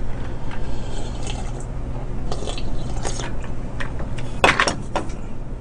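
Close-miked eating: crunchy bites and chewing of fried chicken drumsticks, with a cluster of sharper crunches about four and a half seconds in, over a steady low hum.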